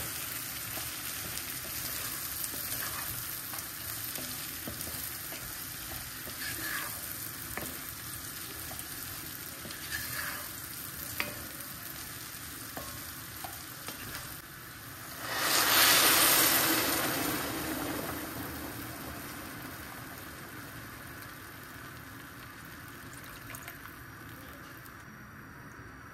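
Red lentils, diced potatoes and carrots sizzling in oil in an enamelled cast-iron pot, stirred with a wooden spoon. About fifteen seconds in, a loud rush comes as water is poured in over the hot vegetables, then fades over a few seconds.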